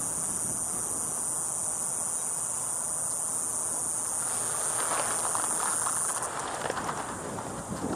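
Steady high-pitched insect buzzing that fades out about six seconds in, with rustling and scuffing noises in the last few seconds.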